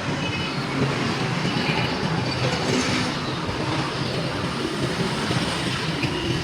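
Steady motor-vehicle noise, a continuous rumble and hiss with no distinct knocks or bangs.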